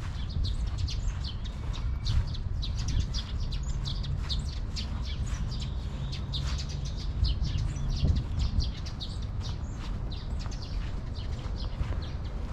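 Small birds chirping busily, many short high chirps a second, over a low steady rumble.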